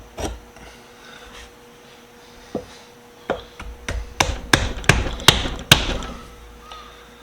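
Hammer taps seating the parts of a wooden-handled screwdriver during reassembly: a single knock early, then a run of about eight sharp strikes a little under half a second apart, getting louder in the middle and then stopping.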